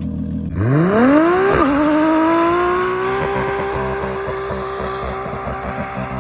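1989 Nissan Laurel C33 engine revving hard about half a second in, dipping briefly, then held at high revs for a few seconds, with a steady hiss: a burnout, the tyres spinning.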